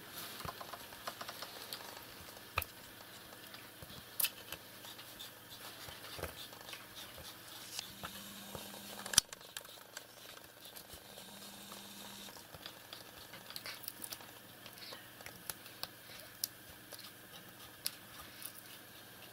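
A cat pawing and scratching at a toy tied under the upper bunk of a bed: scattered soft taps, scrapes and rustles, with one sharper knock about halfway through.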